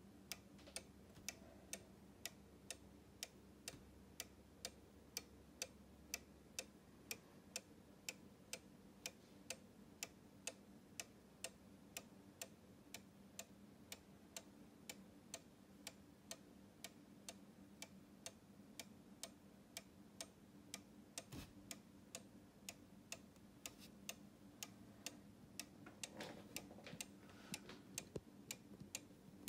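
One-day mechanical cuckoo clock ticking steadily, an even tick-tock of its pendulum movement.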